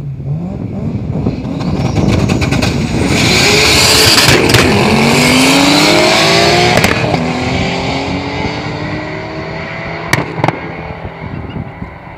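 A Nissan Skyline R32 GT-R's twin-turbo straight-six and a tuned Audi S6 launching and accelerating hard in a drag race, engine pitch climbing through several gear changes, then fading as the cars pull away down the strip. Two sharp cracks near the end.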